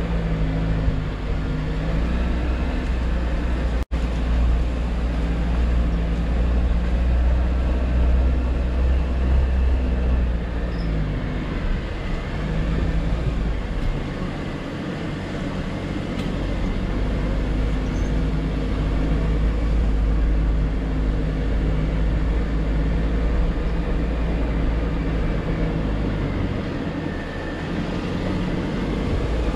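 Jeep Wrangler JL driving slowly over a dirt trail: a steady low engine sound whose pitch rises and falls several times as the throttle changes. The sound cuts out for an instant about four seconds in.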